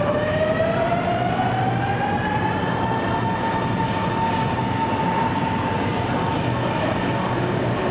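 Traction motors of a CSR Zhuzhou-built metro train whining as it accelerates from the platform: the whine rises in pitch over the first three seconds, then holds steady, over a steady rumble.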